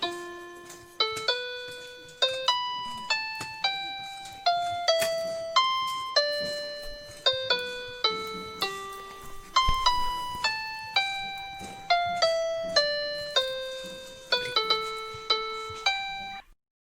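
Background music: a simple melody of single piano-like keyboard notes, each struck and fading, about two or three a second, cutting off suddenly near the end.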